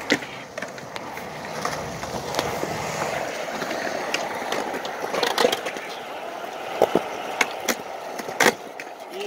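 Skateboard wheels rolling over concrete with a steady rough rumble, broken by sharp clacks of a board hitting the concrete and a ledge: one at the start and several in the second half.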